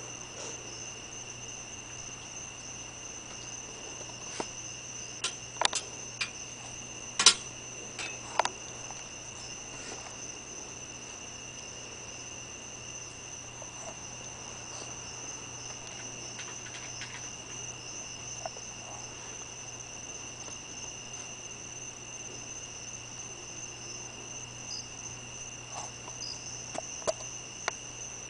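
Steady, continuous high-pitched trilling of a night insect chorus, with a few sharp clicks a few seconds in and again near the end, the loudest of them about seven seconds in.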